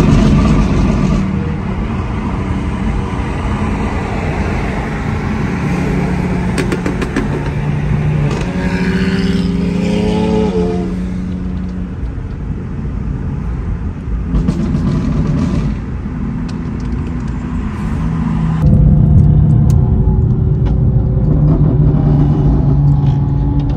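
BMW engines and exhausts running as the cars drive off together. One engine revs up and drops back about ten seconds in, and the engine sound gets louder a few seconds before the end.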